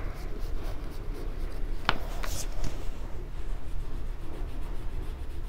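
Oil pastel rubbing and scratching on paper as a drawing is coloured in, with one sharp click about two seconds in.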